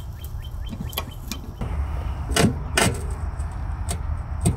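Click-type torque wrench on a mower blade bolt clicking as it reaches its set 35 foot-pounds, which signals that the correct torque has been reached. There are two sharp clicks about half a second apart near the middle, over a steady low rumble.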